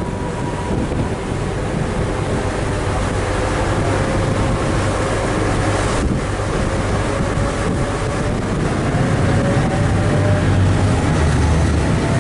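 Passenger river-bus catamaran under way: engines running steadily with water rushing past the hull and wind on the microphone. A faint whine rises slowly in pitch and the engine grows a little louder near the end.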